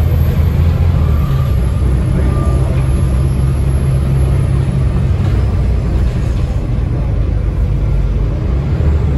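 Volvo D7C 7.3-litre diesel engine of a Volvo B7TL double-decker bus pulling steadily, heard from inside the passenger deck, with a thin high whine from the ZF Ecomat automatic gearbox over it.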